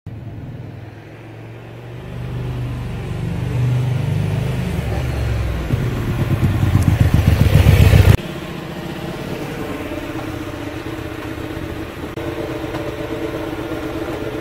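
Small V-twin motorcycle engine revving, growing louder in quick pulses until it cuts off sharply about eight seconds in. It is followed by a quieter, steady engine note.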